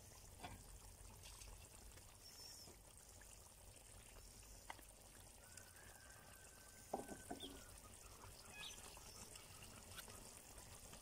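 Near silence: faint simmering of tomato stew in a cast-iron kazan, with a few soft clicks of a metal spoon and skimmer, a short cluster of them about seven seconds in.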